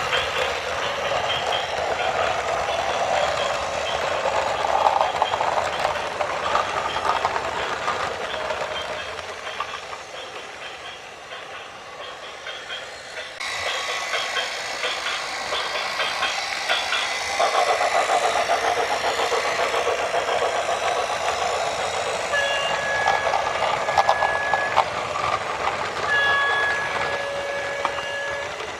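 Heavy-vehicle engine noise, coarse and mid-pitched, changing abruptly twice along the way. Near the end a vehicle horn sounds in several short and longer blasts.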